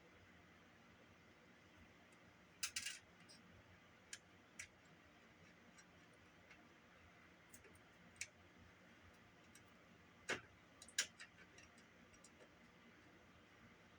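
Sparse small clicks and taps from handling the plastic casing and tiny screws of a portable cassette player during disassembly, louder clusters about three seconds in and again around ten to eleven seconds; otherwise near silence.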